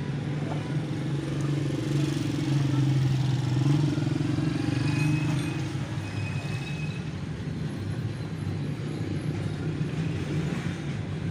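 A motor engine running with a steady low hum, loudest a few seconds in and then easing off.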